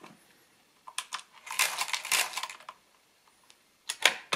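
Hamann Manus F mechanical calculator being worked: a click about a second in, then two quick clattering turns of the crank, a pause, and a sharp mechanical click near the end.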